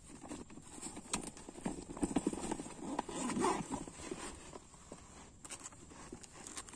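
Irregular knocks and slaps, most of them in the first half, as a freshly landed giant snakehead thrashes against a fishing bag on the sand and is handled.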